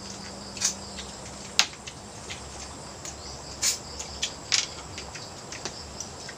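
Steady, high-pitched insect chorus, crickets chirring, with a scattering of sharp clicks and knocks, a few of them louder.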